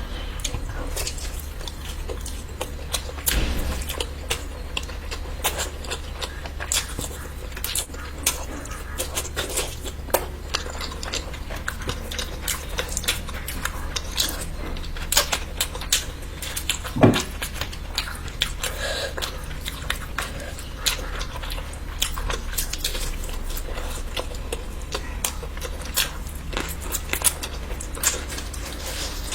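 A person chewing and biting food close to the microphone, with many irregular mouth clicks, over a steady low hum.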